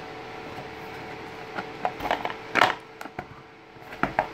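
Handling of a small cardboard box and its paper contents: scattered rustles, crinkles and light knocks, the loudest about two and a half seconds in.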